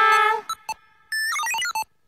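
A drawn-out call of voices ends, then an electronic call ringtone plays: two short beeps, then a quick run of bright synthesized notes stepping up and down, the sound of an online call ringing through.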